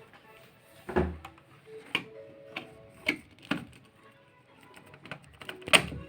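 Irregular clicks and knocks of objects being handled, about seven in all, the loudest near the end, over faint background music.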